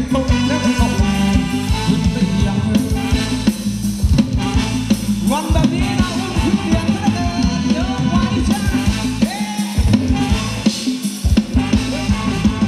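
Live band playing upbeat ramwong dance music, a drum kit keeping a steady beat under the bass and a melody line.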